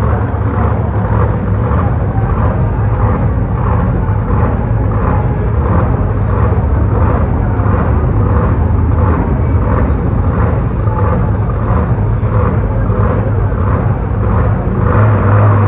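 Bone Shaker monster truck's engine running at idle, loud and steady, with an even pulse of about two a second.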